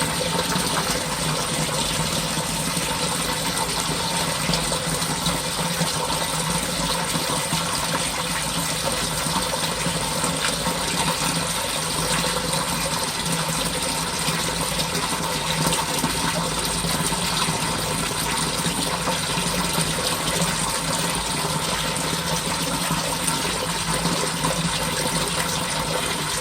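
Water gushing steadily in a French drain's sump pit.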